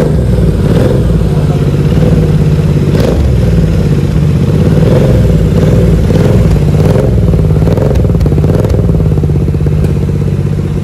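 Royal Enfield Continental GT 650's 648 cc parallel-twin engine running loudly, the throttle blipped so it revs up and falls back several times in the middle before settling to idle.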